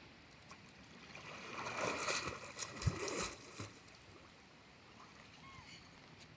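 Water splashing and sloshing for about two seconds, with a sharp knock in the middle, over a faint steady flow of water.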